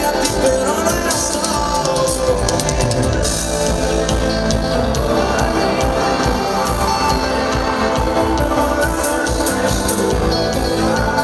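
Live pop band music played loud through a stadium sound system, with a steady beat and electric guitar.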